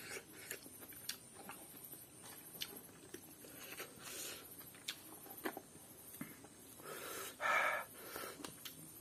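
Close-up eating sounds as fried rice is eaten by hand: wet chewing and lip smacks with small clicks of fingers on the plate, and a brief louder rush of noise about three-quarters of the way through.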